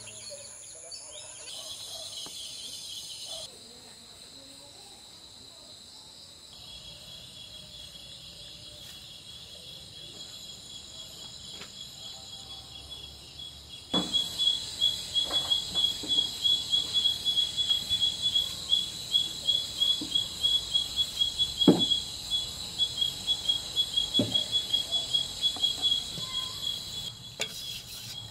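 Night insect chorus: crickets trilling steadily high up. About halfway through a loud cricket call starts, pulsing several times a second, with a few short knocks over it.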